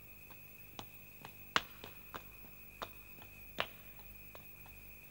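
Faint, sharp clicks or taps at uneven intervals, the loudest about one and a half seconds in, over a steady faint high-pitched hum.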